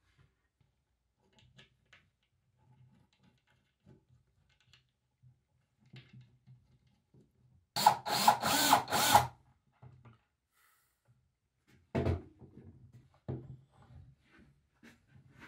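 Cordless drill driving the mounting bolts of a longboard truck into the wooden deck: four quick bursts over about a second and a half, about eight seconds in. A sharp knock follows a few seconds later, amid light handling sounds.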